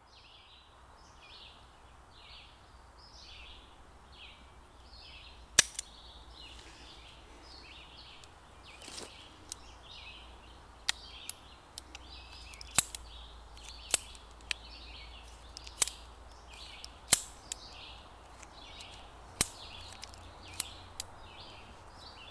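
.22 pistol firing about a dozen sharp cracks at irregular intervals, some close together, others several seconds apart. A steady run of short high chirps, about two a second, continues underneath.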